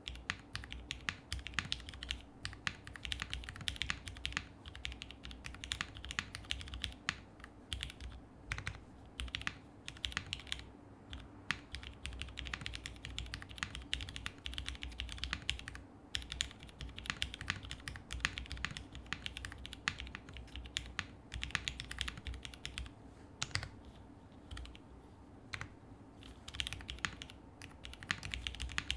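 Continuous typing on a Polaris custom mechanical keyboard with lubed and filmed Cherry HyperGlide Black linear switches in an FR4 half-plate and CRP keycaps: a steady stream of keystrokes that thins out briefly around the middle and again about two-thirds through.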